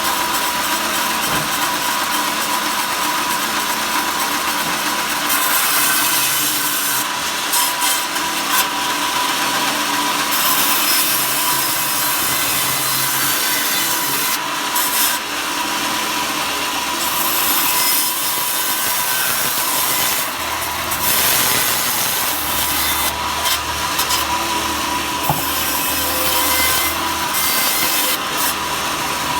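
A saw cutting wood into thin slats: continuous cutting noise over a thin steady whine, the cut growing louder and easing off several times.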